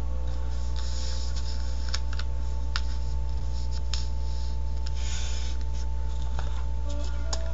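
Hands sliding over and tapping tarot cards on a cloth-covered table: soft scratchy rustles and scattered light clicks of long fingernails on the card stock, over a steady low hum.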